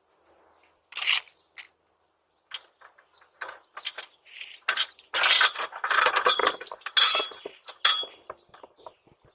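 A flurry of sharp clicks, clinks and scrapes from small hard objects being handled, sparse at first and thickening into a dense clatter about halfway through.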